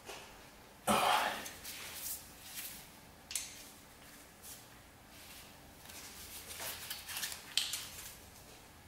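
Hand tools straining at the seized 6 mm timing-belt tensioner bolt on a Ducati Monster 696, which will not break loose. There is a loud breath of effort about a second in, then scattered scrapes and a few sharp clicks of the hex key against the bolt.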